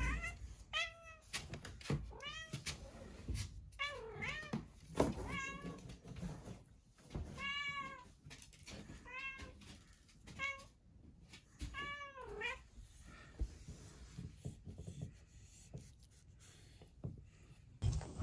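A cat calling again and again, about ten short meows that each rise and fall in pitch: its 'burunya', a trilled greeting meow. Scattered knocks and handling noises fall between the calls, and the last few seconds hold only faint rustling and clicks.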